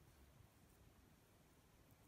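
Near silence: a knife slicing ripe plantain on a wooden board gives only a couple of faint ticks over a low hum.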